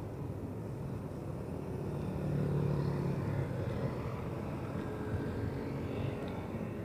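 Motorcycle engine running as the bike moves off with a second motorcycle in tow on a strap. The engine hum gets louder about two seconds in, then settles.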